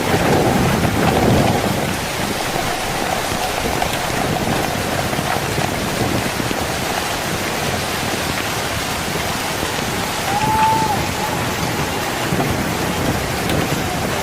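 Heavy rain pouring steadily, swelling louder in the first second or so.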